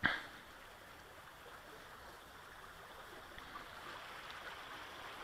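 A single sharp knock right at the start, dying away within a fraction of a second, then a faint steady outdoor hiss with a few faint ticks.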